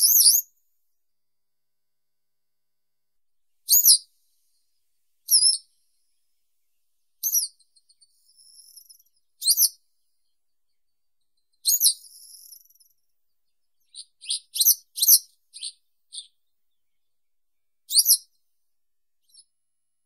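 Western yellow wagtail calling: short, high, sharp notes, one every second or two, with a quicker run of several short notes about two thirds of the way through.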